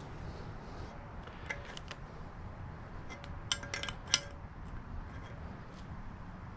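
A few light metallic clicks and clinks of a wrench turning a threaded fitting into an LT1 water pump housing, the sharpest about four seconds in.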